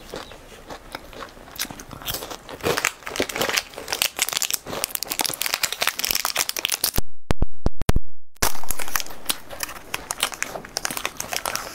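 Close-miked crunching of a chocolate wafer bar being chewed, then the crinkling and tearing of a foil-lined candy bar wrapper being opened. A short run of loud sharp clicks comes about seven seconds in.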